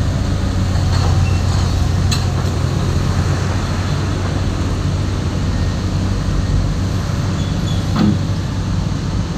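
Heavy diesel engine running steadily at a low, even pitch, with two short sharp knocks, about two seconds in and near the end.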